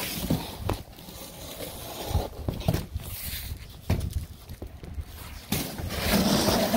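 A cardboard sheet on concrete rustling and scraping as someone shifts onto it, with scattered light knocks and handling bumps.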